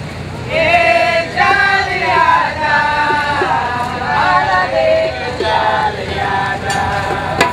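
Voices singing a West African chant, with long held notes that bend in pitch, starting about half a second in.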